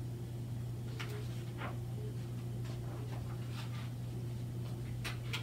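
Paper rustling as a page of a hardcover picture book is turned, heard as a few faint short rustles and ticks over a steady low hum.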